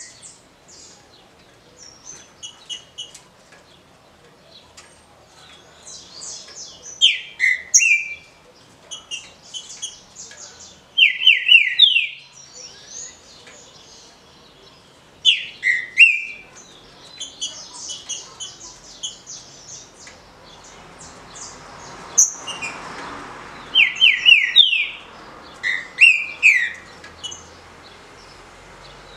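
Green-winged saltator (trinca-ferro) singing its short 'roda' song: loud phrases of three or four quick sliding whistled notes, repeated every few seconds, with softer high chirps in between.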